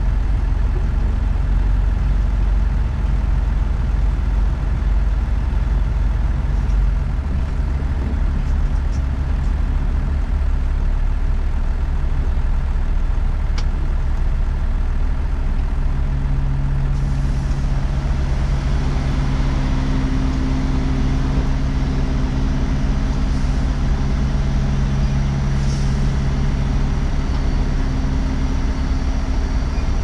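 Semi-truck diesel engine running steadily, heard from inside the cab as a low drone. About halfway through, a steady engine hum comes up more clearly.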